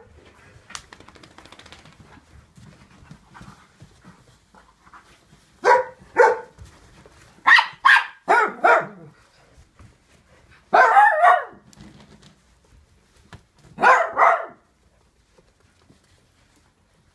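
A dog barking during play, in short runs of two or three barks. The barks begin about six seconds in, come thickest around eleven seconds, and end with a last cluster near fourteen seconds.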